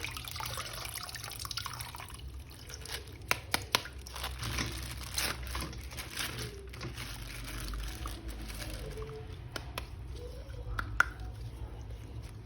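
Water dripping and trickling while a plastic toy figure is washed, with scattered light clicks and taps of the plastic being handled.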